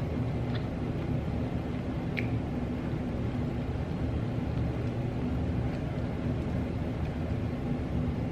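Steady low background rumble with a constant hum, with a few faint clicks, likely from eating, over it.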